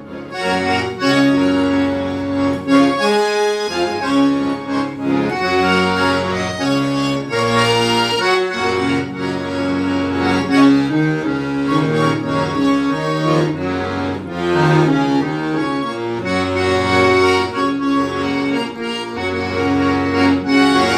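Accordion playing a tune: sustained melody notes and chords over a bass line that changes every second or so.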